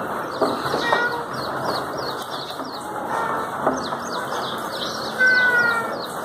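Birds chirping rapidly over a steady background hum, with a few clicks and one clear, slightly falling call about five seconds in.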